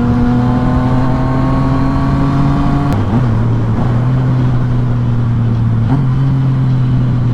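Yamaha FZ-09's three-cylinder engine pulling under acceleration, its note rising slowly, then dropping suddenly with a gear change about three seconds in and holding steady, with a brief dip near six seconds. Wind rumble on the microphone runs underneath.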